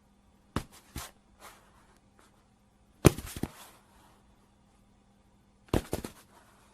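Body-fall sound effects: three separate falls, each a heavy thud followed by a few smaller knocks as the body settles. The middle one, about three seconds in, is the loudest.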